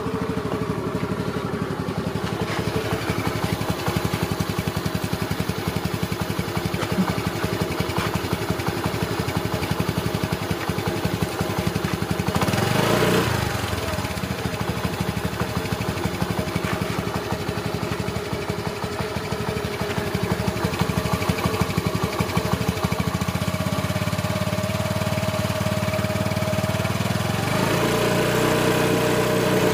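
Motorbike-style engine sound effect running steadily, revving up and back down once partway through, laid over a plastic toy scooter that has no motor of its own.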